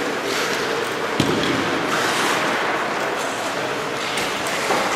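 Ice rink hall ambience: a steady hiss of background noise with faint voices, and one sharp knock about a second in.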